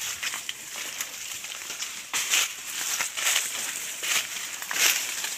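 Footsteps crunching through dry leaf litter and twigs, a few irregular crunches about a second apart, with leaves rustling in between.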